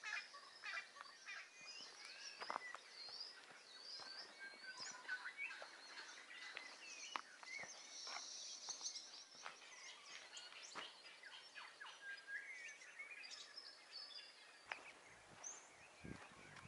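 Faint outdoor chorus of many birds chirping and whistling in short overlapping calls, with a few soft low knocks near the end.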